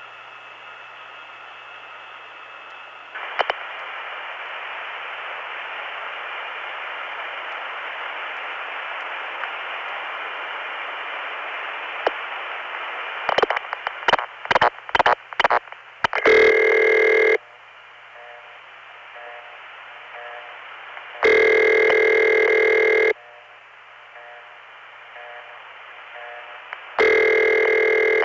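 Analog long-distance telephone call to San Juan heard down the line: hiss and faint steady line tones swell after a click, then a rapid string of switching clicks about halfway through. A high-pitched ringback follows three times, an ITT imitation of the Bell System City Ring, with faint short buzzing pulses between the rings.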